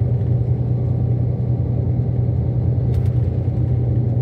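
Steady low rumble of a moving vehicle heard from inside the cabin, with one brief click about three seconds in.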